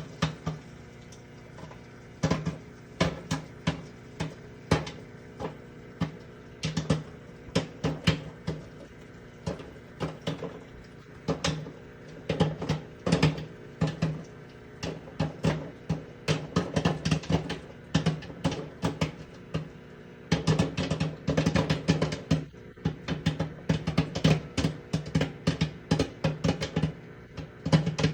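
Popcorn kernels popping: scattered pops a few each second, coming much faster from about twenty seconds in as the batch reaches full popping, over a steady hum from the appliance cooking it.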